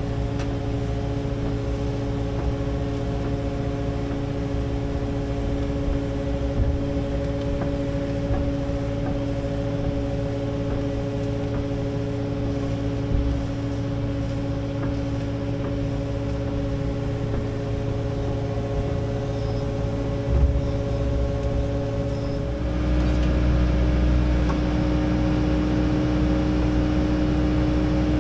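Kubota 080 excavator's diesel engine running steadily, with a few knocks. About 23 seconds in, the engine note rises a little and gets louder.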